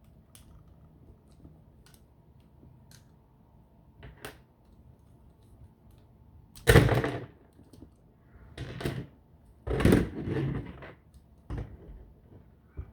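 LEGO Bionicle plastic parts being pulled apart and handled: faint sharp clicks at first, then from about halfway several louder short clatters of plastic pieces.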